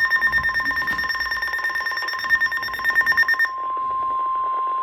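NOAA Weather Radio warning alarm tone: a long, steady, loud alarm tone announcing a warning broadcast. A second, higher pulsing tone sounds over it and cuts off about three and a half seconds in, leaving the lower tone alone.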